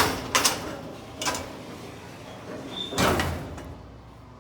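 Steel door of a PTR vertical baler being handled and shut: a sharp metal clank, two lighter knocks, then a longer, heavier bang about three seconds in.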